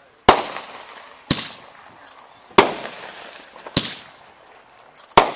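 Consumer 1.4-grade 51-shot firework cake firing: about five sharp reports a little over a second apart, each with a fading tail, with brief crackles in between.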